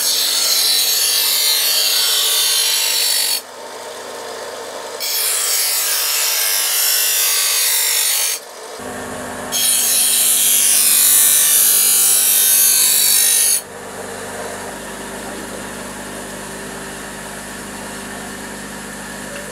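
Bench grinder running while a steel knife blade is pressed to its stone wheel in three grinding passes of a few seconds each, a loud gritty hiss with short lulls between. For the last several seconds only the grinder runs, more quietly, with the blade off the wheel.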